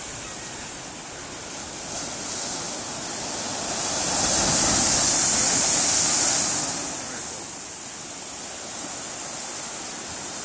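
Rough monsoon surf of the Arabian Sea, a steady rush of breaking waves. A wave crashes and washes over concrete tetrapods, swelling to its loudest about four seconds in and easing off a few seconds later.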